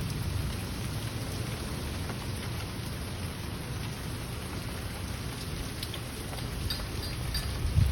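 Steady heavy rain hissing in a summer thunderstorm, with a low rumble underneath; thunder begins to roll near the end.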